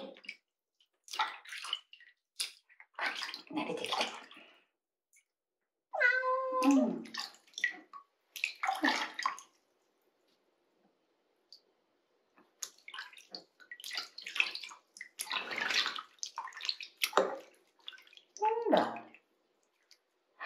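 Water splashing in a sink basin as hands scoop and pour it over a wet kitten being bathed, in irregular bursts with a short lull midway. About six seconds in, the kitten gives one drawn-out, low meow that falls in pitch.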